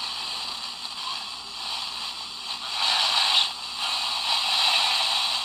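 FM radio static hissing from the small speaker of a SoundGear SGCCR clock radio as its analog tuning dial is turned between stations. The hiss wavers in strength and grows louder about three seconds in.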